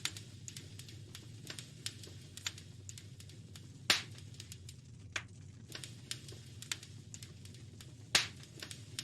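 Wood fire crackling in a fireplace: irregular sharp pops and snaps, with two louder pops about four and eight seconds in, over a low steady rumble.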